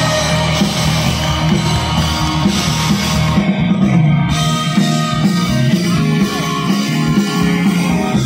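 Live band music played through a concert sound system, heard from within the audience, with a steady bass line under guitar and drums.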